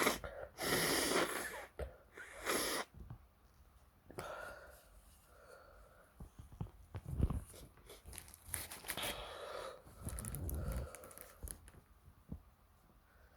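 A person sneezing twice in quick succession, about half a second and two and a half seconds in, followed by quieter wheezy breathing with a couple of low bumps.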